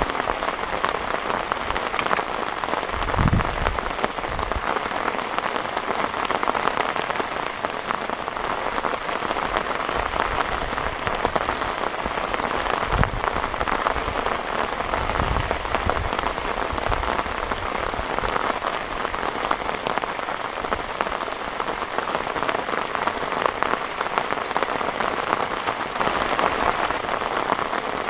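Heavy rain falling steadily as a dense, even patter, with a few brief low buffets.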